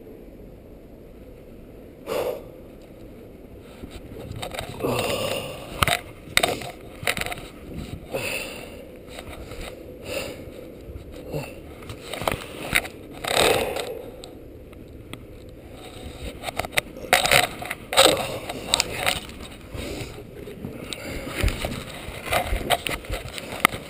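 Footsteps crunching and scraping through deep snow, an uneven run of steps with louder stretches in the middle and near the end.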